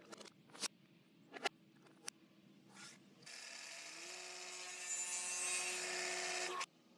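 A few sharp knocks and clicks, then a power tool working wood for about three seconds: a steady grinding rush with a humming tone that steps up in pitch partway, cutting off suddenly near the end. The shop sound is played backwards.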